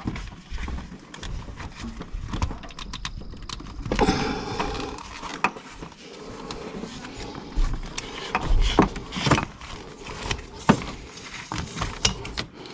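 Irregular clicks, knocks and rustling as hands and a belt, used in place of a filter wrench, work at the spin-on primary fuel filter on a Duramax diesel's fuel filter housing, trying to loosen it.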